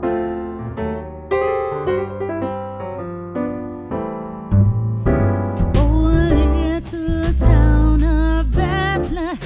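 Background music: electric piano playing a melody of separate notes, joined about five seconds in by heavy bass and a wavering lead melody as the music grows fuller and louder.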